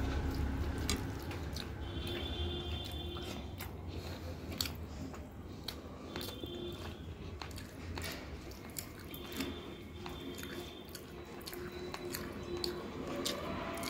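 Close-up chewing of a mouthful of rice and chicken curry, with many scattered wet mouth clicks and smacks. Fingers squish and mix the soft rice on the plate.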